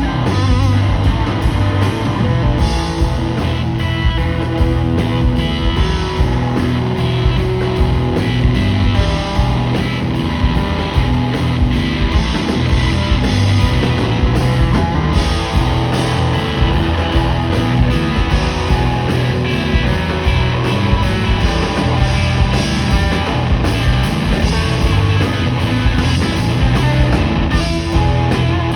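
Live rock band playing loudly, with electric guitar to the fore over bass and drums.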